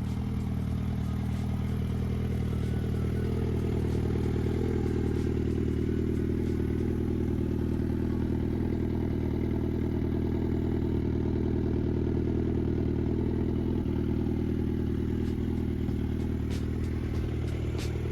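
Suzuki Bandit 1250 SA's inline-four engine running steadily at a constant speed, with no revving, as a low even drone.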